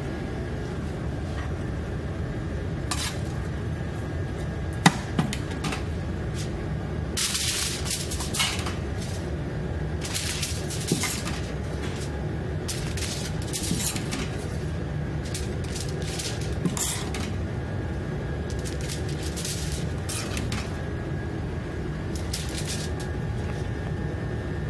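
Dishes, pots and metal utensils clinking and scraping now and then, with the sharpest knock about five seconds in, over a steady low hum.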